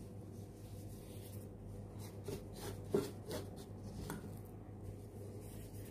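Faint rustling and light crackling of crispy fried onions as a gloved hand scrapes them out of a wire-mesh strainer and scatters them over rice, with a few soft clicks.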